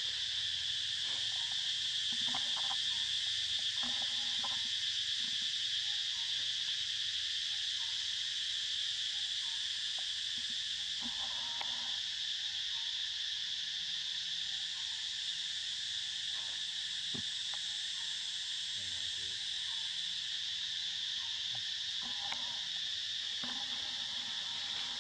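A steady, unbroken high-pitched insect chorus, with a few faint clicks and light rustles underneath.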